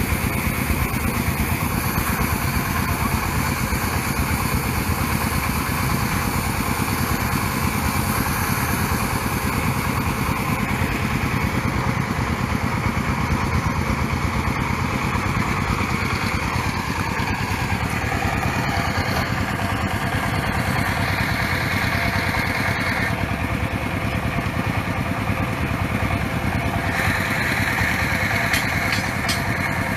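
Small stationary engine driving a water-well drilling rig, running steadily.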